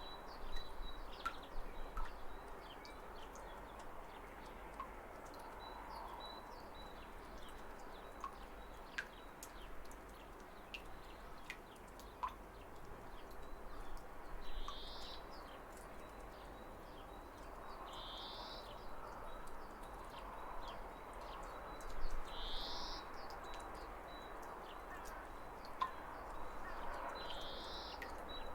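A waterfall's steady rush of water with birds chirping over it; one bird repeats a short call about every four seconds from midway on.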